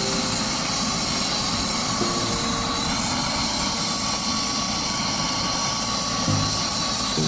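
Helicopter in flight: a loud, steady rush of rotor and engine noise. Faint music notes come in over it near the end.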